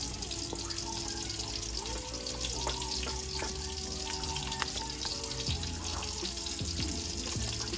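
Silicone spatula stirring thick, cheesy mashed potatoes in a metal saucepan: soft wet squelching over a steady hiss, with background music playing.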